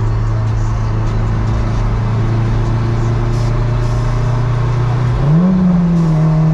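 Turbocharged Acura RSX's 2.0-litre four-cylinder engine heard from inside the cabin, holding a steady low drone at light throttle. About five seconds in, the revs jump and then settle at a higher steady pitch as the driver shifts down, ready for a pull.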